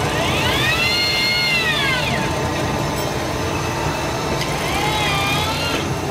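Command Z-20 electric fishing reel's motor whining as it winds in line against a hooked fish on a bent rod. The whine rises in pitch over the first second, holds, then falls away about two seconds in, and a shorter, wavering whine comes near the end. Under it runs a steady engine rumble.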